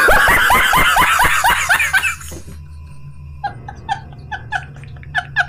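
A man laughing loudly, a fast run of ha-ha bursts for about two seconds. Then the laughter turns quieter, in short pulses about four or five a second, over a steady low hum.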